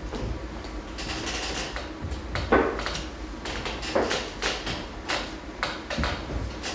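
Irregular knocks, clicks and clatter of objects and furniture being handled and moved during a stage scene change, with louder thumps about two and a half and four seconds in.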